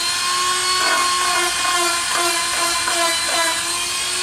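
Cordless Dremel rotary tool with a fine-grit sanding drum running at low speed in a hole in wood: a steady whine whose loudness pulses slightly as the drum is worked around.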